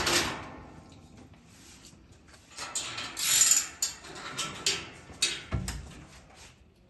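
Metal clicking and clanking of handcuffs and the barred door of a courtroom dock cage while a detainee is handled, with rustling of clothing and a dull thump about five and a half seconds in.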